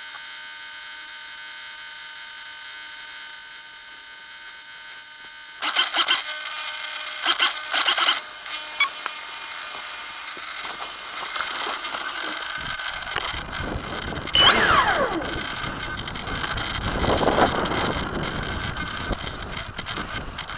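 Motor of a Mega 22/40 1EE making the strange noise it is being recorded for. A steady whine of several tones comes first, then a run of sharp clicks a few seconds in. The motor then runs with a rougher rumble, and a whine in it drops in pitch twice.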